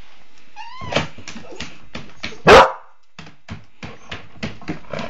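Border Collie puppy gives a short rising whine, then one loud bark about two and a half seconds in, amid repeated clicks and knocks of its paws scrabbling at a plastic storage box.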